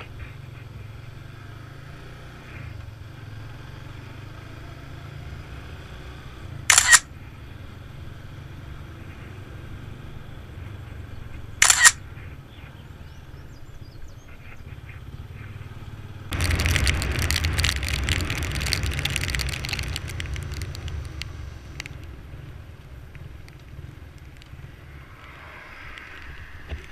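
Two sharp, loud camera shutter clicks about five seconds apart, over a steady low rumble. About 16 seconds in, a louder rush with a deep rumble starts suddenly and fades over about five seconds.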